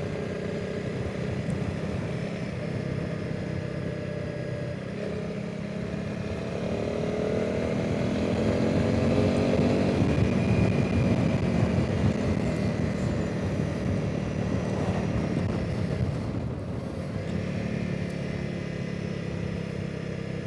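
Honda CRF300 Rally's single-cylinder engine running on the move, with wind rush. The engine note climbs and grows louder about a third of the way in, peaks around halfway, then eases off, with a brief drop about three-quarters through before it runs steady again.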